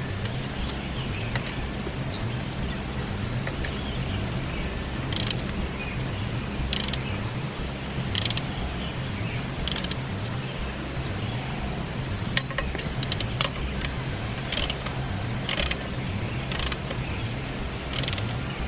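Intermittent short mechanical clicks and ratcheting over a steady low hum.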